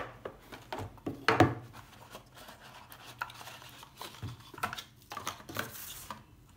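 A product box being opened and its contents handled: scattered knocks, taps and rubbing of cardboard and packaging, with a sharp knock at the very start and another loud one about a second and a half in.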